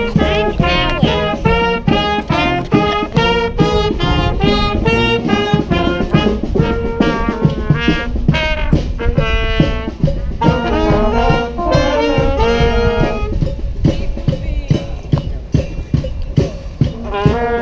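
Street brass band playing a rock tune: trombones, trumpets and saxophones in harmony over a steady drum beat. About three-quarters through, the horns drop out for a few seconds, leaving the drums, then come back in just before the end.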